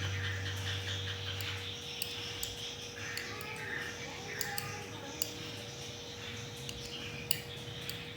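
Scattered light clicks and taps of kitchen utensils against dishes, irregular and a few per second, over a faint steady hum.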